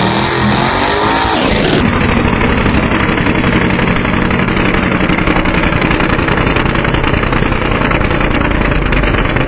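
Garden pulling tractor's engine running hard at full throttle under the load of a tractor pull. About two seconds in the sound cuts to a duller, steadier drone.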